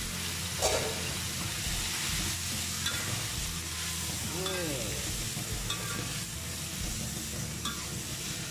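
Water spinach (kangkung) sizzling as it is stir-fried in a hot wok, with a steady hiss and a metal spatula scraping and knocking against the pan every second or two.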